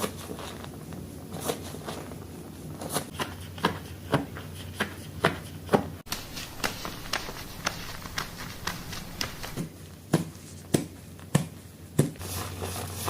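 Fingers scratching and rubbing through hair on the scalp during a scalp massage, giving short crisp crackles at an uneven pace of one or two a second, with a few louder ones near the end, over a low steady hum.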